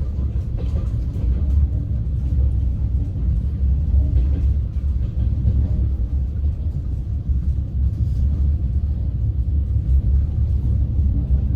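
Steady low rumble of a moving passenger train heard from inside the carriage, with faint scattered knocks over it.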